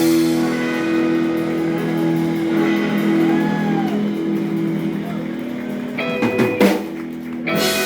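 Live band of electric guitars, bass and drum kit holding a long final chord while a lead guitar bends a few notes, then a flurry of drum hits about six seconds in, closing out the song.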